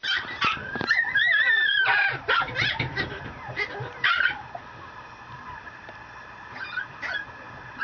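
Mame shiba puppy whimpering: a wavering high whine in the first two seconds, then a run of short yips, going quieter about halfway through.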